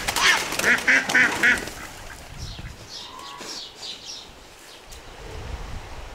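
Farmyard ducks quacking: a quick run of four loud quacks in the first second and a half, then fainter, higher bird calls.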